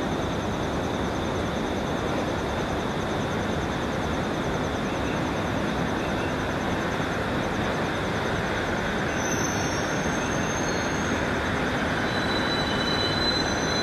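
Steady running noise of trains at a station platform, with no separate clanks or horn. A faint high whine comes in about two thirds of the way through.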